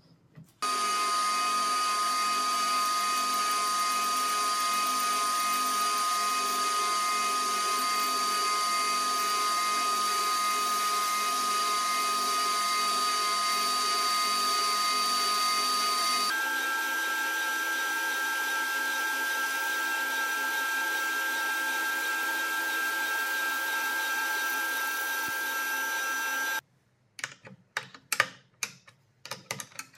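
Table saw running at a steady pitch while a wooden blank, turned on a threaded rod in a bearing jig, is shaved round over the blade. The tone changes abruptly about halfway through and the saw sound stops suddenly near the end, followed by a few light clicks and knocks.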